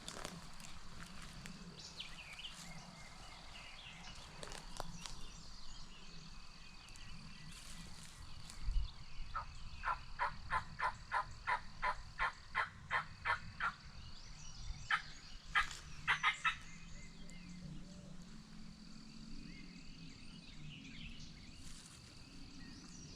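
Turkey yelping: a run of about fourteen evenly spaced yelps, about three a second, then a few sharper notes shortly after. A faint steady high-pitched hum continues underneath.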